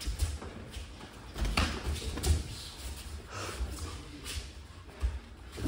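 Bare feet stepping and shuffling on judo mats as two judoka grip-fight, with irregular low thuds and a couple of sharper knocks about one and a half and two seconds in.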